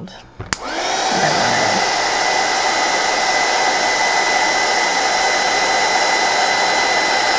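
Craft heat gun switched on with a click and blowing steadily with a high motor whine, drying watercolour paint.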